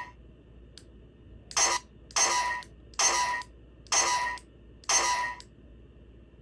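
The 'gako!' sound effect of a handmade Juggler slot-machine GOGO! lamp box, played five times roughly a second apart as the lamp is switched on. A faint click comes just before the first one.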